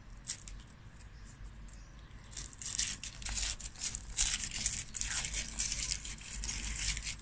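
Thin foil wrapper crinkling as it is peeled off a hollow chocolate novelty egg. It is faint at first and grows louder and denser from about two seconds in.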